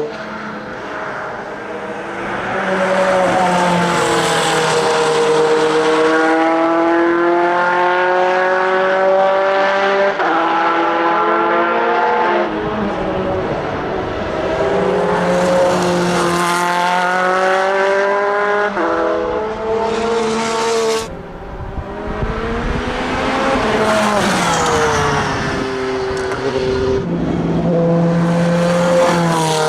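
Audi R8 LMP prototype's twin-turbo V8 at racing speed, accelerating hard through the gears: the engine note climbs in pitch and drops back at each upshift, several times over, as the car passes. About two-thirds of the way through, the sound drops out for a moment and comes back with a falling pass-by note.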